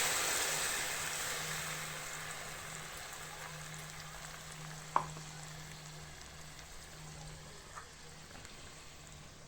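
Food frying in hot oil in a pan, a steady sizzling hiss that fades gradually as it settles. One sharp click about five seconds in.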